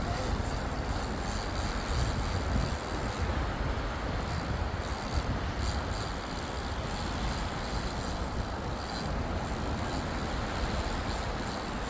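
Steady outdoor noise of wind and surf, with a low rumble of wind buffeting the microphone.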